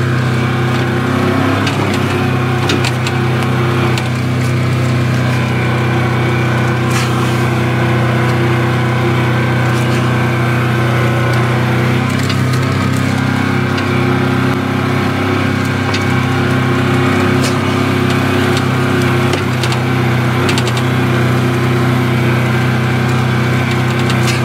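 Side-by-side UTV engine running steadily at low speed, heard from inside the cab, with scattered small clicks and rattles.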